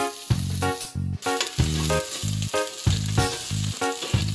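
Chopped onions sizzling as they sauté in oil in a stainless steel pot. Background music with a steady repeating beat plays over it.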